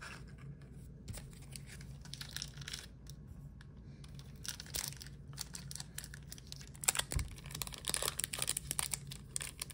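Foil wrapper of a Pokémon card booster pack crinkling and tearing as it is handled and opened, sparse at first and denser about seven seconds in.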